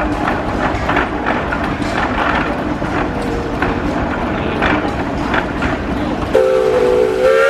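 1906 Frick steam traction engine running along, its exhaust chuffing about three times a second over a steady low hum. About six seconds in, its steam whistle blows and is held.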